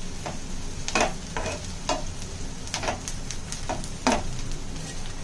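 Chopped onion sizzling in hot oil in a pan, stirred by hand, with the utensil scraping against the pan several times. The onion is being fried until reddish-brown.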